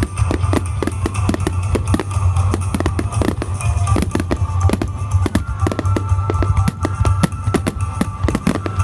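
Fireworks display set to music: many rapid, irregular bangs and crackles of fireworks over a loud musical soundtrack with a steady low drone.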